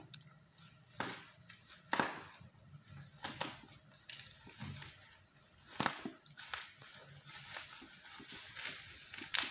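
A black plastic courier bag crinkling and crackling irregularly as hands grip and work at it with a small knife to open it.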